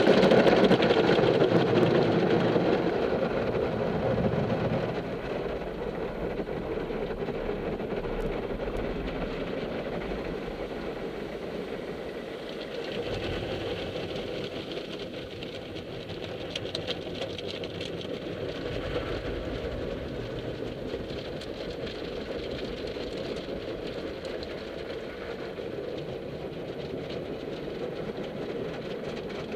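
Automatic drive-through car wash heard from inside the car: water spray and soapy foam beating on the windshield and body over the steady run of the wash machinery. It is loudest at first and eases about four to five seconds in.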